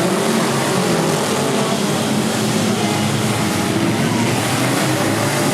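Many four-cylinder demolition derby cars' engines running and revving at once, heard together as a steady, loud din with no single crash standing out.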